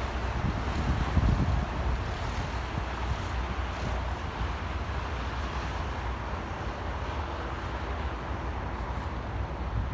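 Steady road and traffic noise with wind buffeting the microphone, the gusts strongest in the first second or so and again near the end.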